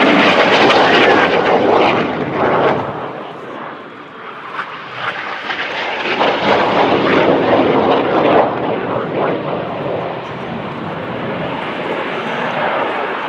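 Jet noise from the Red Arrows' BAE Hawk T1 jets and their Adour turbofan engines flying past. It is loud at first, dips about four seconds in, swells again with another pass, then settles to a steadier, lower level.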